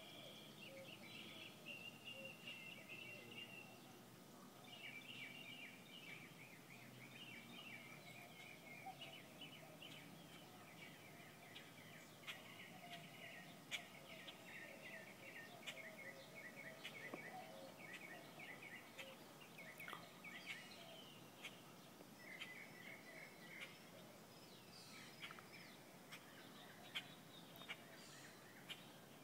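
Faint chorus of several birds chirping in quick, repeated runs almost throughout, with a few sharp clicks, the loudest about halfway through.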